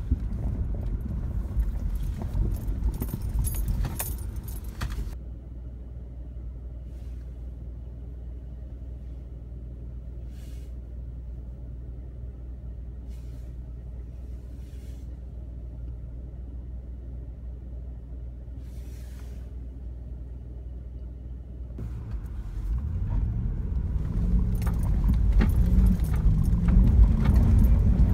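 Jeep engine running, heard from inside the cab while crawling over a rough snowy trail, with loose items rattling and clicking for the first few seconds. It settles to a quieter steady hum, then the engine revs up with wavering pitch near the end.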